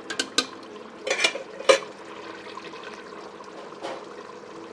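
A spoon stirring thick potato and tomato masala in a metal pot, knocking and scraping against the pot a few times, loudest about a second and a half in, over a steady low hum.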